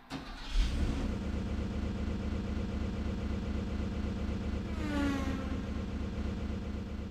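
Built-in car-engine sound effect from a Kumyoung Chorus Master karaoke machine: a recorded engine running with a steady, even pulse, with a brief rev about five seconds in.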